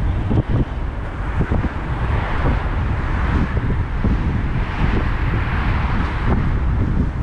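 Wind buffeting the microphone in uneven low gusts, with a rushing hiss that swells up twice.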